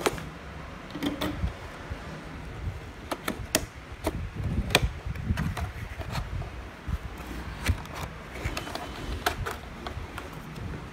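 Cardboard model-kit box being opened by hand: the flap is pried and pulled open, with scattered sharp clicks and taps of cardboard being handled.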